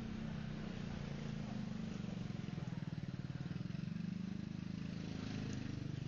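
Car engine idling with a steady low, even pulse.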